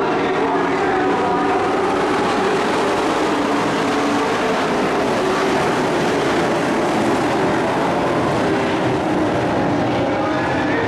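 Pack of dirt-track race trucks under green, several engines running hard together in a loud, steady drone whose pitch wavers slightly as they circle the oval.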